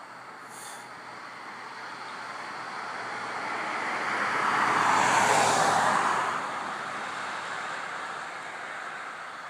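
A car passing by: road noise builds steadily, peaks a little past the middle, then quickly fades away.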